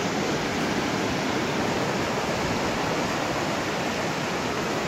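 Steady rushing of fast-flowing stream water.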